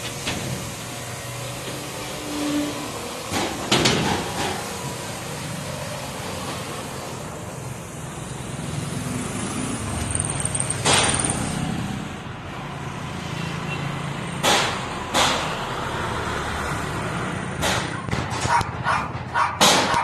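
Construction-site noise: a steady background rumble with scattered sharp knocks and clanks, a brief high-pitched squeal about ten seconds in, and a quick run of knocks near the end.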